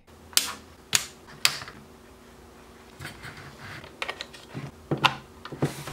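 Sharp plastic clicks from connecting a model station lighting kit: three clicks about half a second apart in the first second and a half, then a run of lighter clicks and handling noise from about three seconds in as the power pack is connected.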